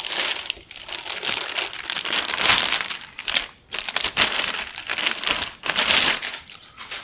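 Plastic packaging and packing material crinkling and rustling in irregular bursts as a box is unpacked by hand.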